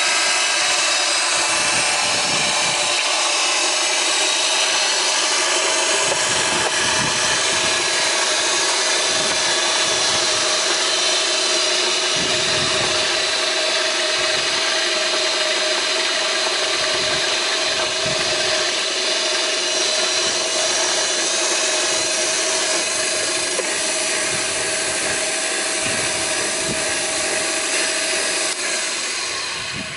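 Felder Variofeed 4 power feeder running: its electric motor and gearbox turning the four feed rollers with a steady whir and a steady whine. It fades out at the very end.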